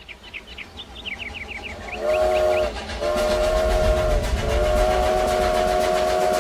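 Steam locomotive chime whistle blowing three times, several notes sounding together: a short blast about two seconds in, then two longer blasts, over a low train rumble. A run of short high chirps comes before it.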